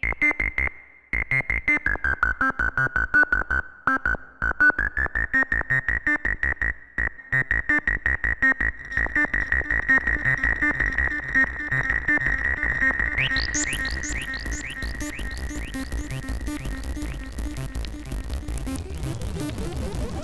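Kassutronics VCO 3340 analogue oscillator played as a fast run of short, sequenced synth notes through a resonant filter whose bright peak dips and rises back in the first few seconds. About two-thirds of the way in, a buzzy upper layer comes in with repeated rising sweeps.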